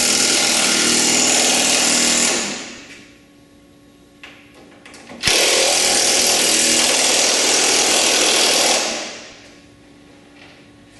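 Cordless drill running hard in two long bursts as it drives bolts tight into T-nuts. The first ends about two seconds in, and the second starts about five seconds in and lasts a little over three seconds. Each trails off at the end.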